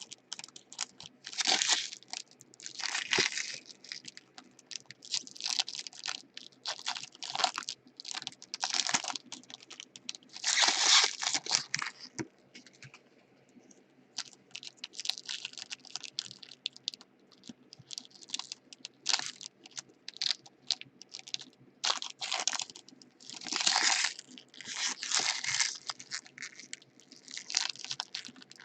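Foil trading-card packs being torn open and their wrappers crinkled, in a string of short irregular bursts with brief pauses, over a faint steady hum.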